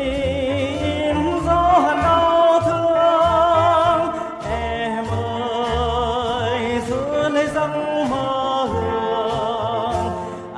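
A Vietnamese song: a male voice holding long notes with wide vibrato over instrumental accompaniment, with low bass notes underneath.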